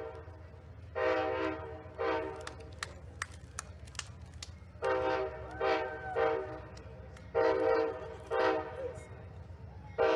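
Amtrak locomotive's multi-chime air horn sounding about eight short blasts in quick groups of two and three. It is a rhythmic horn show played for trackside fans rather than a single crossing warning.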